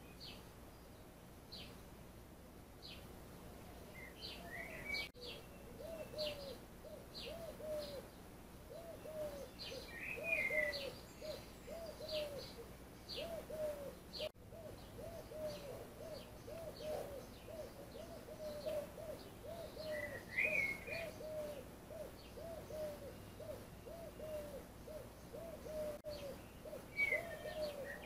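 Birds calling: short high chirps repeated throughout, a few brief warbled phrases, and from about five seconds in a steady run of short low notes about twice a second.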